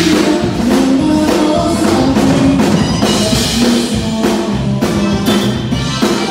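Tejano conjunto band music, with a steady drum-kit beat under held melody notes.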